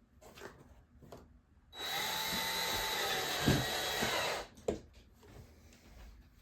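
Power drill driving a screw into the door through a wood shim: the motor runs for about two and a half seconds with a steady whine that sags slightly as the screw tightens, then a sharp click just after it stops.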